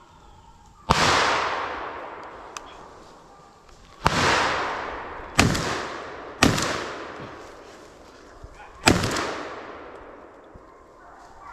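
Five gunshots during a deer hunt: one about a second in, one about four seconds in, two more in quick succession around five and a half and six and a half seconds, and a last near nine seconds. Each is a sharp crack followed by a long fading echo.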